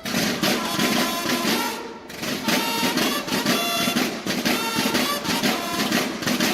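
Mexican banda de guerra playing: bugles sounding short repeated notes over marching snare drums.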